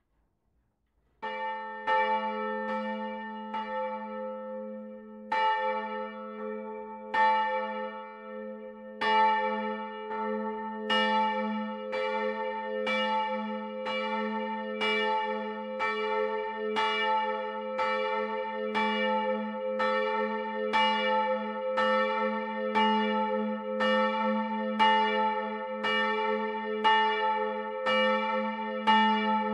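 Church bell no. 3 ('Johannes d.T.'), one of three bells cast by the Otto foundry in 1951, rung alone by its electric ringing machine and heard close up inside the belfry. About a second in, the clapper begins striking as the bell swings up, a few uneven strokes at first. It then settles into a steady swing of about one stroke a second, each stroke ringing on into the next.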